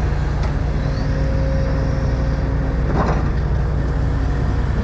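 Engine running steadily with a low, even hum, with a brief noise about three seconds in.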